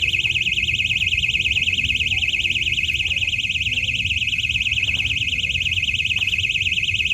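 Cicadas buzzing in the trees: a loud, steady, high-pitched buzz that pulses rapidly.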